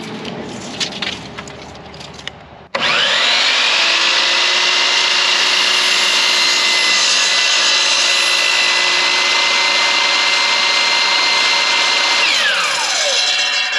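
A DeWalt sliding compound miter saw starts up about three seconds in, after a few light knocks of wood being handled. Its motor spins up, runs steadily at full speed through a cut in a wooden board for about nine seconds, then winds down with a falling whine near the end.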